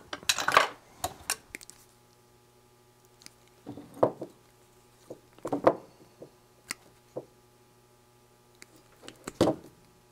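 Wire strippers working at stiff military hookup wire: scattered sharp clicks and snips with light metallic clinks and short scrapes of hand tools, in several separate bursts.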